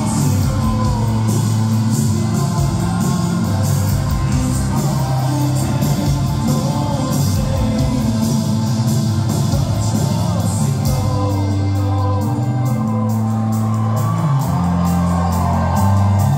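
Live rock band playing in a concert hall: electric guitars, bass, drums and keyboard under a sung lead vocal, with shouts from the crowd.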